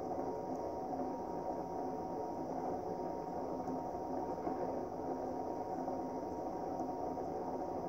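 Star 9200 mini lightbar's rotator running, a steady motor whir and hum as its lamps and mirror turn.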